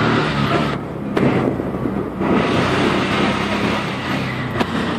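Auto-rickshaw's small engine running steadily as the tuk-tuk drives through traffic, heard from the passenger seat, with cloth rustling over the microphone and two sharp clicks, one about a second in and one near the end.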